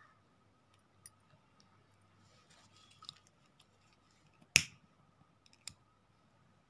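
Faint handling of plastic beads and macrame cord, then a pocket lighter is clicked: one sharp click about four and a half seconds in and a smaller one about a second later.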